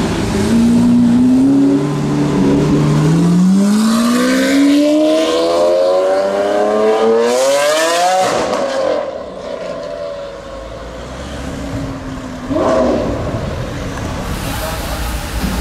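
Lamborghini Aventador SV's V12 with a Capristo straight-pipe exhaust accelerating away: the engine note climbs steadily for about six seconds, then drops off suddenly. After a quieter stretch, a short rising rev comes a few seconds later.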